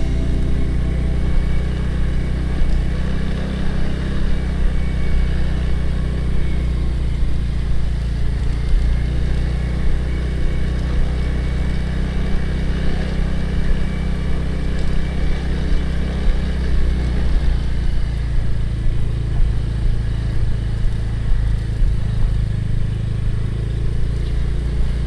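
Motor scooter engine running while riding, a steady low rumble whose note shifts slightly about two-thirds of the way through.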